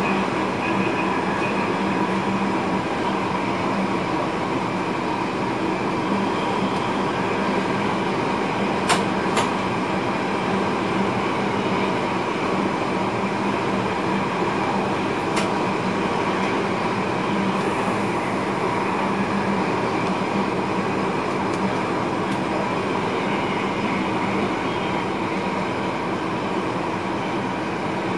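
Electric passenger train running along the line, heard from inside the driver's cab: a steady rolling rush with a constant hum. A few sharp clicks break through it, two close together about nine seconds in and one about fifteen seconds in.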